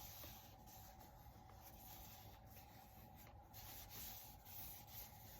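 Near silence with faint rubbing and rustling of paper being handled and pressed down.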